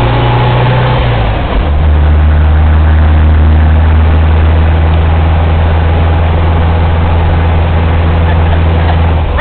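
Volkswagen Thing's air-cooled flat-four engine running while the car is driven, heard from inside the cab with wind and road noise. Its note drops to a lower pitch about a second and a half in, then holds steady.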